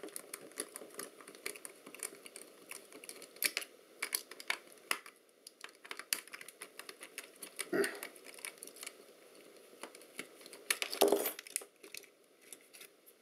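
Small irregular clicks and ticks of a precision screwdriver working tiny screws and of fingers handling the plastic and metal body of a Canon Epoca camera, with two louder handling noises about eight and eleven seconds in.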